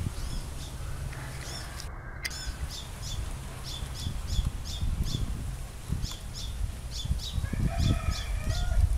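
Small birds chirping in quick groups of short high notes throughout, over dull knocks of a knife cutting raw pork on a wooden chopping board, which grow more frequent in the second half. A brief lower call sounds near the end.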